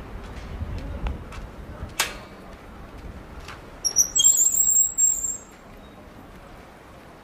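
Street ambience in a pedestrian shopping street with faint footstep-like ticks and a sharp click about two seconds in. About four seconds in, a shrill, high-pitched chirping squeal lasts about a second and a half and is the loudest sound.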